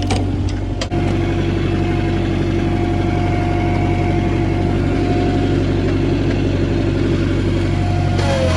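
Bobcat 743 skid steer's diesel engine running steadily, with a few sharp knocks in the first second. Near the end the engine pitch dips and climbs again.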